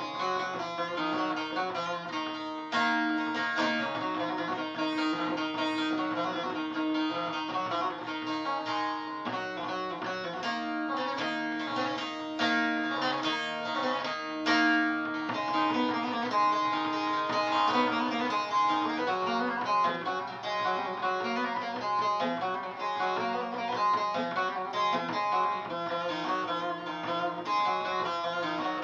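Bağlama (saz) playing the instrumental introduction of a Turkish türkü: a fast plucked melody over a steady held low note.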